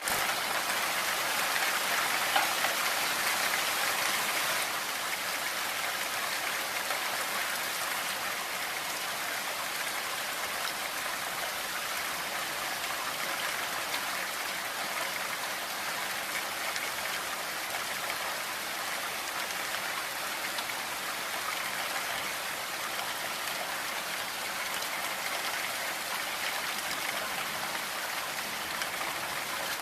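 Blizzard wind rushing through forest trees with blowing snow: a steady, dense hiss, slightly quieter after the first few seconds.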